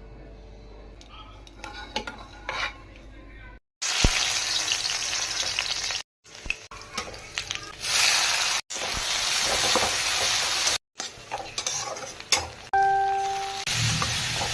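Food sizzling in hot fat as it is stirred in a pan, in several short cuts that start and stop abruptly. A few light utensil clicks come before the sizzling starts, and a short beeping tone sounds near the end.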